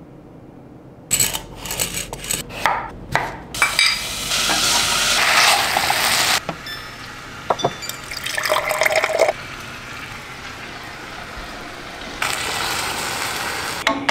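Kitchen cooking sounds starting about a second in: clinks and knocks of utensils and cookware, water running from a dispenser into a glass, and stirring in a pot of curry on the stove.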